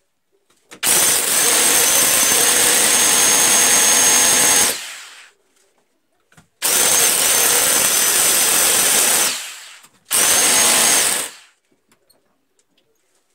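Electric drill boring into a plastered wall in three runs: a long one of about four seconds starting about a second in, a second of about three seconds, and a short one near the end, each with a steady high motor whine and winding down when the trigger is released.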